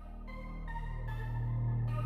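Electronic background music with a held bass note and synthesizer chords, slowly swelling in level.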